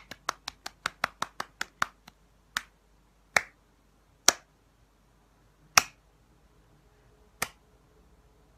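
Sharp hand claps: a quick run of about five a second for the first two seconds, then slowing to single claps a second or more apart.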